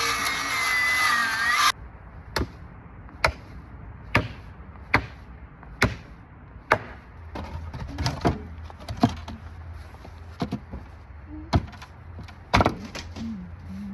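A power tool cutting, which stops abruptly about two seconds in. Then a series of sharp single knocks, about one a second at first and more irregular towards the end.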